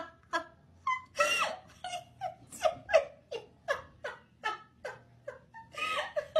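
A cat making a rapid string of short cries that fall in pitch, about three a second, with a longer rising-and-falling meow about a second in and another near the end.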